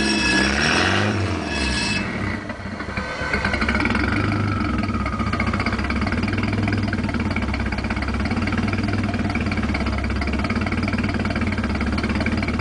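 Mitsubishi Galant VR-4's turbocharged engine coming down off a rev, then settling into a steady idle through its exhaust. A faint whine falls away a few seconds in.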